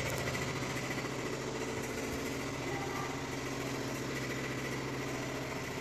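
Steady mechanical hum of a running motor, a constant low drone with a faint high whine over it.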